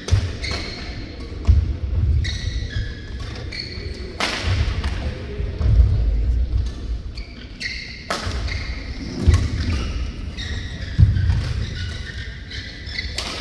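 Badminton rally: sharp racket strikes on the shuttlecock, about half a dozen spaced a second or more apart, with short high squeaks of shoes on the court and low thuds of the players' footwork.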